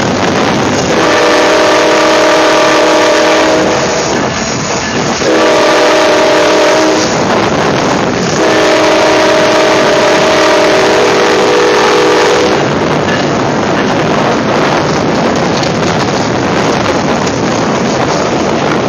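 Diesel locomotive's multi-chime air horn sounding three blasts for a road crossing, the last the longest, over a constant rushing noise.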